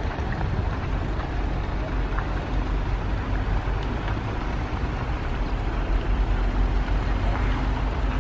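Self-propelled modular transporters' diesel power packs running steadily, with a low rumble, as the multi-axle units creep along a road carrying a house.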